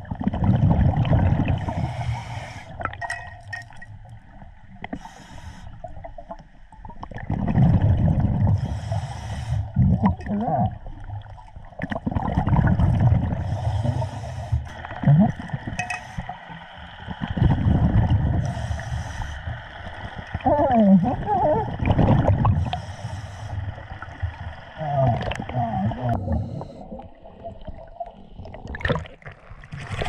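Scuba diver breathing through a regulator underwater: each exhale sends out a loud, low, gurgling rush of bubbles, about six of them a few seconds apart, with a fainter hiss of the inhale in between. Near the end the diver breaks the surface in a rush of water.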